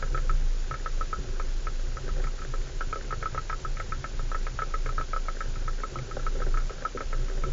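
4x4 driving slowly over a rough stony track: a low engine rumble under a fast, uneven rattle of clicks.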